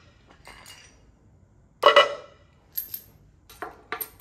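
Steel pieces of a seal installer tool clinking against an aluminium engine rear cover as they are set in place: one loud ringing clank about two seconds in, with a fainter clink before it and a few light clicks after.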